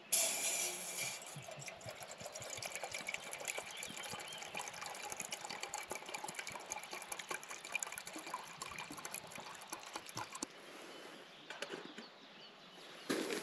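Water running or pouring, a steady hiss with fine crackling that starts suddenly, fades out about ten seconds in and comes back just before the end.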